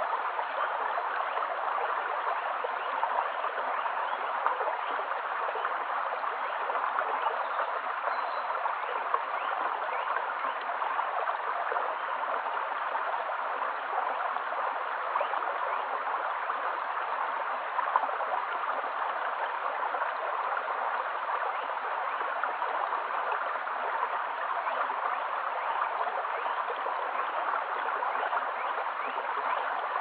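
Shallow stream running over stones, a steady babble of flowing water.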